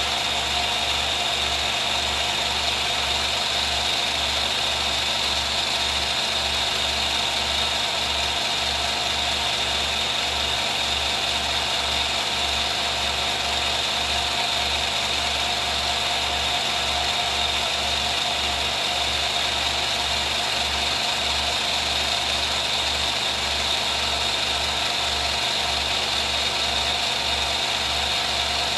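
Film projector running: a steady mechanical whir and hum with an even low pulsing from the film-advance mechanism.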